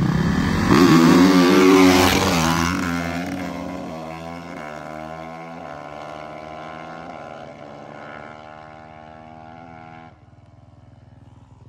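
Two 450cc four-stroke dirt bikes launching hard from a standing start and accelerating away, loudest at the launch, then fading into the distance as the revs climb and drop with each gear change. The sound drops suddenly about ten seconds in.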